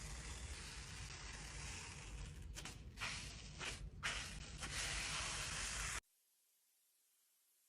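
Slime being handled, giving a steady crackling hiss with louder irregular bursts over a few seconds, then cutting off suddenly about six seconds in to near silence.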